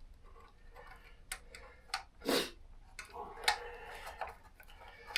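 Small clicks and light knocks of hands handling a motorcycle coolant hose and its fittings, with a short rustling swish a little over two seconds in.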